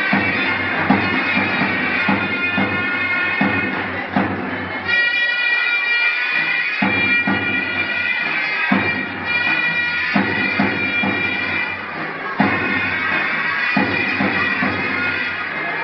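Turkish zurna and davul music: a shrill, reedy pipe melody over a steady drum beat. The drum drops out for about two seconds near the middle while the pipe carries on.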